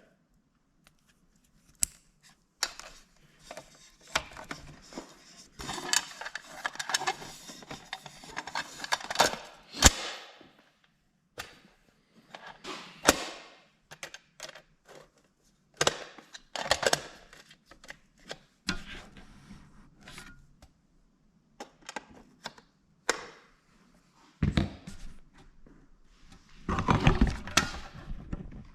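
Hands working on a shop light and its power cord: scattered clicks, knocks and scrapes of plastic parts and cord being handled and fitted back together.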